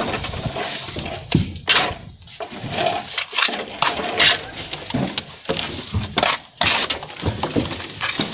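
Hand plastering trowel scraping and pressing wet cement mortar onto a concrete beam in repeated, irregular strokes, with scratchy scrapes and dull knocks.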